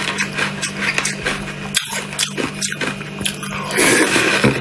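Frozen red-coloured ice being bitten and crunched in the mouth: a rapid run of crisp cracks and crackles, louder and denser from about four seconds in.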